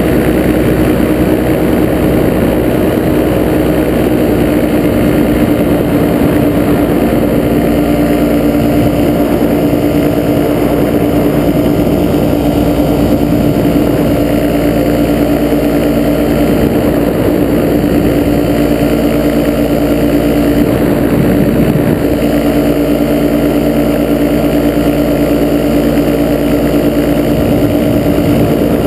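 Ultralight trike's engine and propeller running steadily in flight, a constant loud drone whose pitch holds level throughout.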